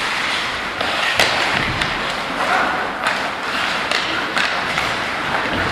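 Ice hockey play on an indoor rink: skate blades scraping the ice in a steady hiss, with several sharp clacks of sticks striking the puck scattered through.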